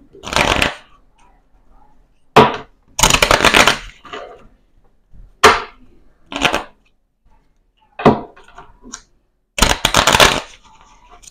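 Deck of playing cards being riffle-shuffled: three fluttering bursts of rapid card clicks, with short sharp snaps of the cards in between.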